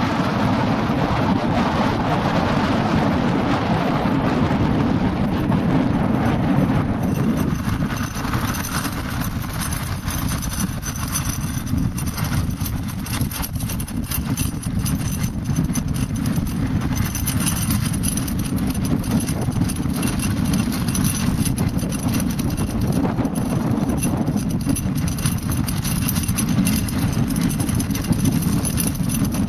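Wind buffeting the microphone, a steady low rumble, over the crackling rattle of board wheels rolling on the hard dry lakebed. The rolling noise is rougher and brighter for the first six or seven seconds, then eases.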